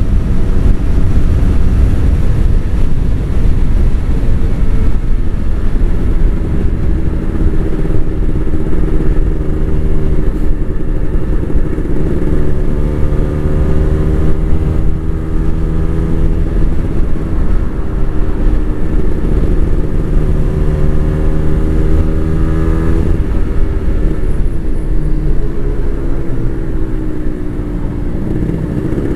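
Two-stroke Kawasaki Ninja 150 motorcycle engine running under way, with heavy wind rumble on the microphone. The engine note holds a steady pitch through the middle, dips a few seconds before the end, then climbs again.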